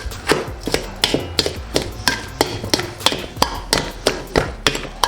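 Kitchen utensil knocking steadily against a bowl, about three strikes a second, mashing the scooped-out potato filling.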